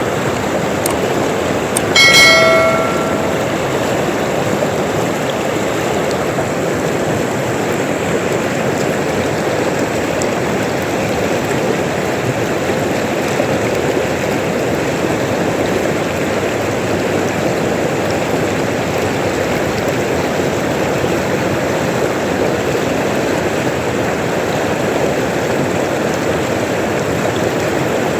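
River water flowing and rushing steadily. About two seconds in, a short bell-like chime rings with several pitches and fades over a second or so.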